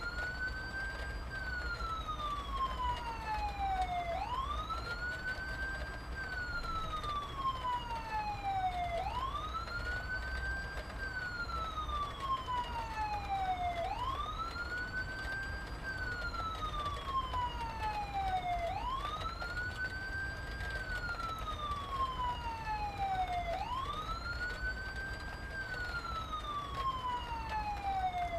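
An emergency vehicle siren wailing in slow cycles, each a quick rise in pitch followed by a long, slow fall, repeating about every five seconds, over a steady low rumble.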